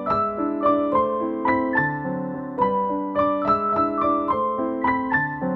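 Background piano music: a gentle melody of evenly paced single notes, about three a second, over held lower notes.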